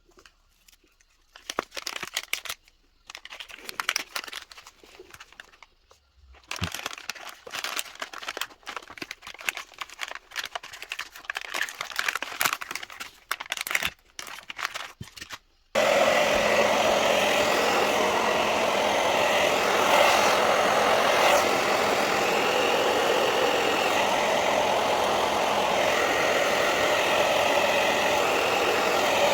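Crackling, rustling handling noises as a battery pack is wrapped. About three-quarters of the way through, a heat gun switches on abruptly and blows steadily, most likely shrinking the pack's wrap.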